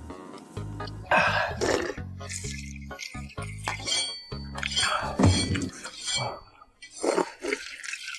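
Background music with a steady bass line, over close-up eating sounds: wooden chopsticks clinking against a porcelain bowl and a few short, noisy slurps of rice porridge.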